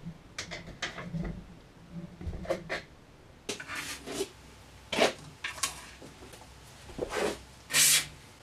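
Handling clicks and knocks at a tubeless tyre and wheel. After a few seconds come several short, sharp hissing bursts, the loudest near the end, as a red can is pointed into the tyre bead before ignition.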